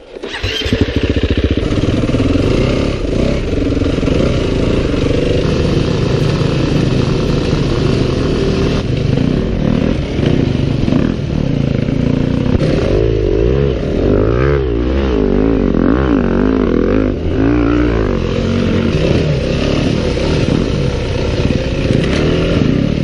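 Off-road trail bike engine running under load, a Yamaha WR250F's for much of it, with its pitch climbing and falling again and again past the middle as the throttle is worked.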